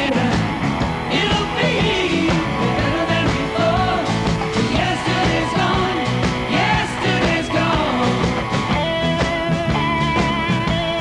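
Rock song with a singing voice, played as background music.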